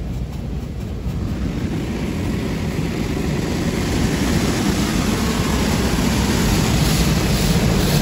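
Automatic car wash running over the car, heard from inside the cabin: a steady rumbling rush of water spray and washing machinery that grows louder and hissier over several seconds.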